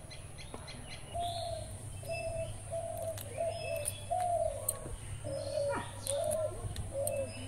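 A bird calling outdoors: a run of short, evenly spaced notes at one pitch, about two a second, beginning about a second in, with small birds chirping higher up and a low steady hum underneath.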